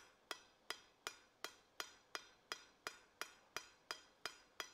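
Blacksmith's hand hammer striking a hot bar on the anvil in a steady rhythm, about three blows a second, each with a short bright metallic ring. The blows are rounding up a forged tenon.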